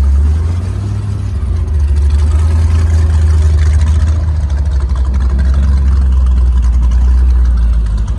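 Connolly 21-foot V-drive Ski Bum day cruiser's inboard engine running under way, a loud, deep, steady rumble with the rush of water and wind over it. The engine eases off briefly about a second in, then holds steady.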